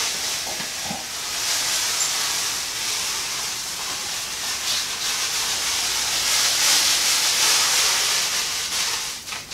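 Crushed caramel 20 malt poured steadily from a paper bag into a cooler mash tun: a continuous hissing rustle of falling grain that tails off just before the end.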